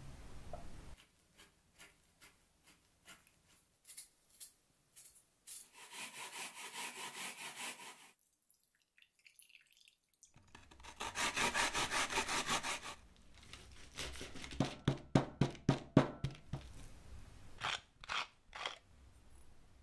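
Kitchen prep on a wooden board: first scattered light knife taps, then two stretches of steady rasping as pear and onion are grated. Near the end comes a quick run of knife chopping, about four strokes a second, as beef is minced by hand.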